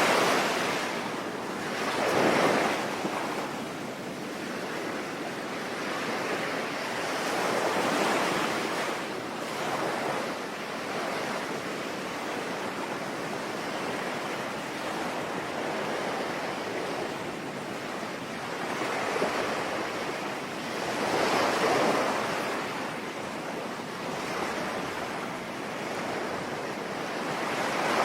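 Sea waves breaking and washing on a shore, swelling and falling away several times over a steady hiss of rain.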